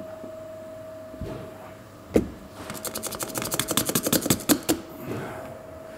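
A single sharp knock, then a run of rapid crackling clicks for about two seconds as the nylon cutting cord is pulled through the windscreen's bonded adhesive.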